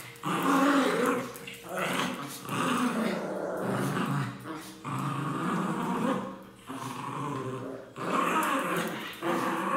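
Two Pinscher dogs growling as they play tug-of-war over a rope toy, a run of rough growls each about a second long with short breaks between them.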